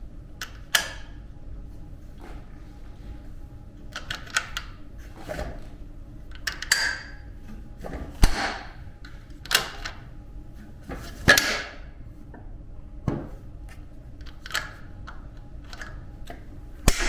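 Extension-section locking mechanism of a hospital bed being worked by hand: a series of irregular sharp clicks and clacks, with short sliding scrapes, about a dozen over the stretch.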